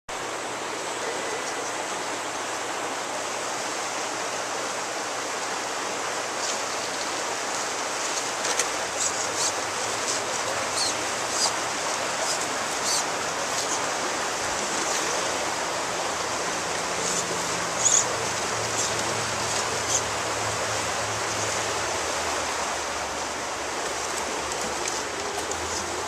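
Steady rush of flowing stream water, with scattered light clicks and ticks on top of it.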